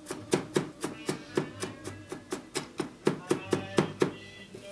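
Chef's knife chopping shallots on a wooden cutting board, a quick even run of about four strikes a second that stops near the end.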